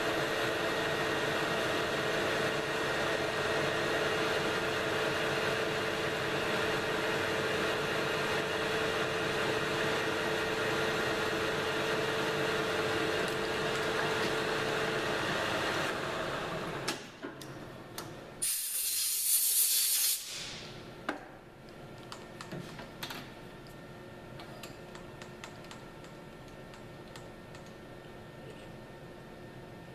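Small metal lathe running steadily with a constant motor whine, switched off a little past halfway so that it runs down and stops. Soon after comes a loud hiss lasting under two seconds, then a few light metallic clicks.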